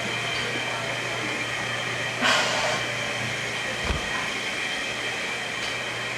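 Steady mechanical hum and hiss, with a short, louder hiss about two seconds in and a low thump near four seconds.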